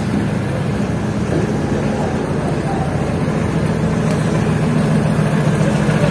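Street traffic, with a motor vehicle's engine running close by as a steady low hum that grows a little louder from about four seconds in.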